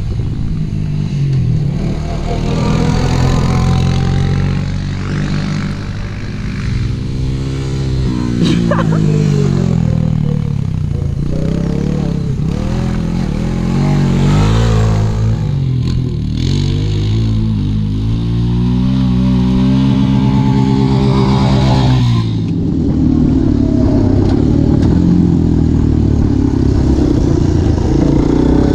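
Four-wheeler (ATV) engines revving up and down as the quads ride and pass across a field, the pitch rising and falling again and again. About 22 s in the sound switches to one quad's engine heard up close from the rider's seat, running steadier.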